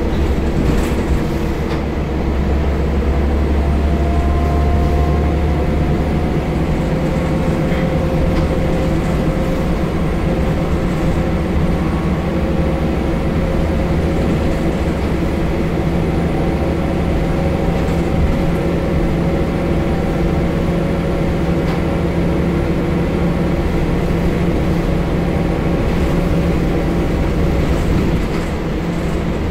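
Scania L94UB single-deck bus's diesel engine and drivetrain running while it drives along, heard from inside the passenger saloon: a steady low rumble with a faint whine that slowly rises in pitch as the bus gathers speed.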